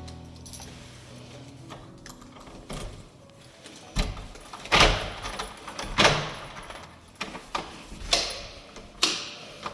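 A run of sharp household knocks and clunks, five or so spread over the second half, the loudest about five and six seconds in.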